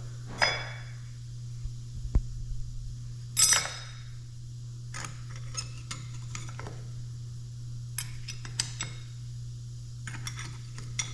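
Metal parts of a hydraulic drive motor's brake pack clinking and rattling as the plates are set into the housing, with the sharpest rings about half a second and three and a half seconds in. A steady low hum runs underneath.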